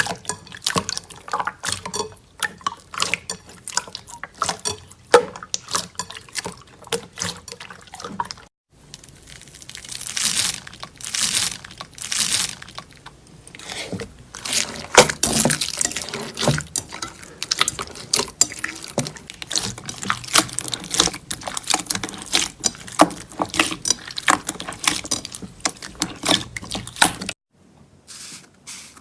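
Wet slime being squeezed and pressed by hand, a dense run of sticky pops, crackles and squelches. The sound changes abruptly twice, about a third of the way in and near the end.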